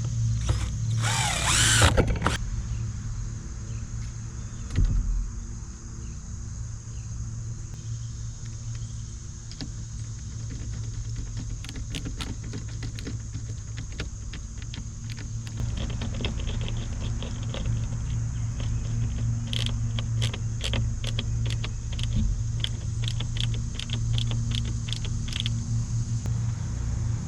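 Small metal hinges and hardware being handled and fitted to a wooden lid: a scrape near the start, a knock about five seconds in, then a long run of sharp clicks and little metallic ticks, all over a steady low hum.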